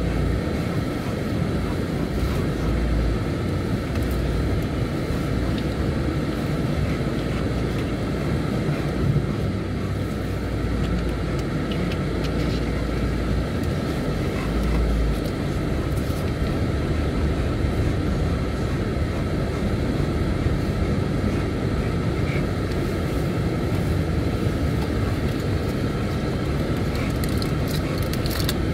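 A road vehicle driving: a steady hum of engine and road noise with a low rumble.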